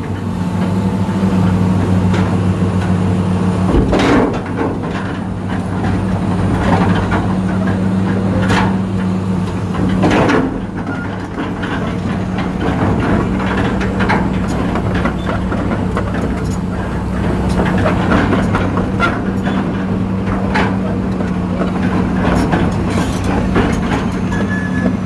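Excavator diesel engine running steadily, heard from inside the operator's cab as a low, even drone. A few short knocks from the machine stand out about four, eight and a half and ten seconds in.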